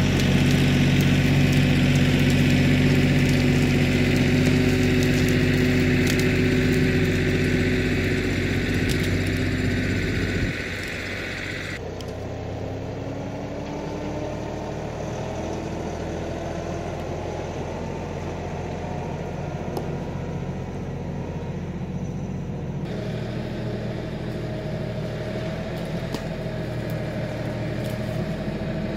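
Kioti NX6010 tractor's diesel engine running steadily. It is loudest for about the first ten seconds, then drops suddenly to a quieter level, with its pitch slowly rising and shifting.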